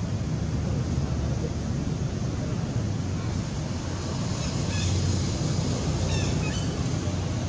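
Steady low wind rumble on the microphone. From about halfway in, short high-pitched chirping calls come in pairs, a few times.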